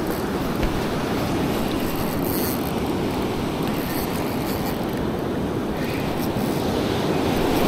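Steady rush of surf washing up the beach, with wind on the microphone.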